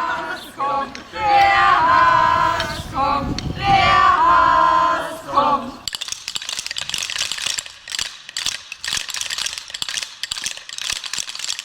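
Children's voices calling out together in a drawn-out chant. About six seconds in, wooden Easter rattles (Klappern) take over with a rapid, dense clatter.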